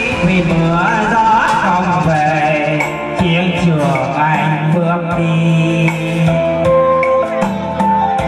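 Background music: a melody that bends and slides in pitch over steady low bass notes, with a few light drum strokes.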